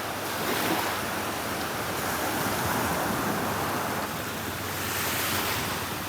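Small Gulf of Mexico waves washing in on a sandy beach: a steady hiss of surf that swells a little twice.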